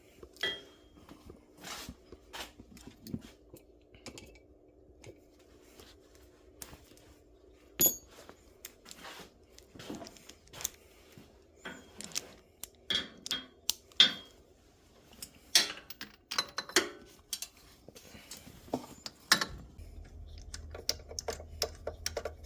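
Metal hand tools clinking and clicking irregularly as a socket and extension are worked on a spark plug in a Polaris RZR 800 engine. A low steady hum starts near the end.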